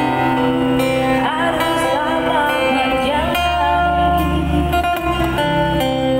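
Live street-band music: a woman sings a melody through a microphone and PA, over strummed acoustic guitar, with a band and drums behind her.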